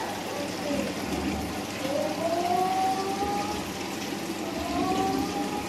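Steady rush and splash of aquarium water, typical of a filter's return flow falling into the tank. A few faint, slowly rising tones sound over it.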